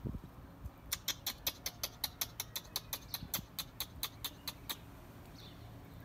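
A rapid, even run of about twenty short, sharp clicks, about five a second, starting about a second in and lasting nearly four seconds.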